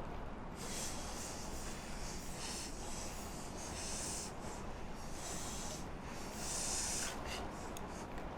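Foley sound effects: a run of hissing, swishing noises, the loudest about four and about six and a half seconds in, followed by a few short clicks near the end.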